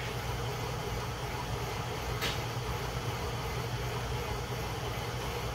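Bridgeport-type milling machine running steadily, its boring head turning in the small-end bore of a Mopar 440 connecting rod to open it up for a bushing. One short tick about two seconds in.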